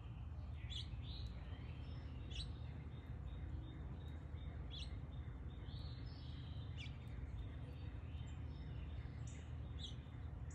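Small birds chirping: short high chirps every second or two, over a steady low background rumble.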